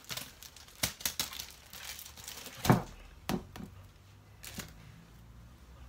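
Aluminium foil being crinkled and torn open by hand, in a quick run of sharp crackles with one loudest crackle about two and a half seconds in. The crackles thin out to a few after about three seconds.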